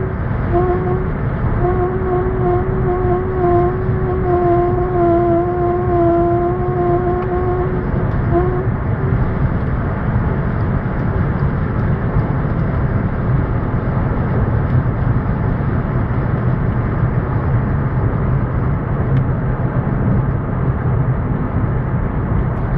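Skoda Octavia at high speed: steady road and wind noise with a droning tone over it. The tone drops out briefly near the start and stops about eight seconds in. The owner traced this strange high-speed noise to the left front window.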